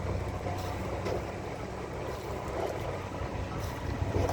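Engine of a motorized coal barge running steadily, a low even drone.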